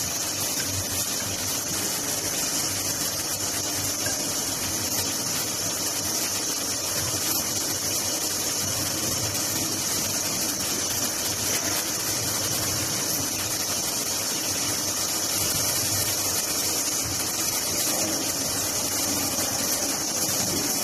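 4-axis CNC pre-insulated duct panel machine running steadily, with a constant high hiss over a lower machine noise.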